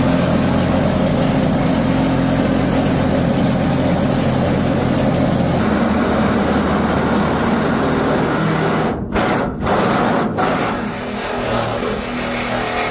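Cordless reciprocating saw running steadily as its blade cuts a patch panel out of a pickup's sheet-metal body, with a few brief breaks about nine to ten seconds in.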